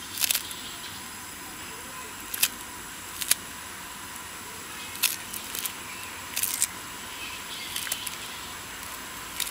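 Small knife cutting through a handful of fresh coriander stems held against the thumb: a crisp snip about every second, at uneven intervals, over a steady background hiss.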